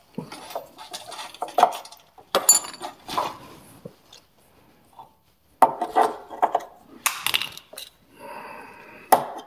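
Irregular metallic clinks, knocks and clatter of bolts, nuts and hand tools being handled while a bolt is fitted through a steel rock slider bracket on a truck frame. There is a bright ringing clink about two and a half seconds in, a burst of clatter around six to seven seconds, and a sharp knock near the end.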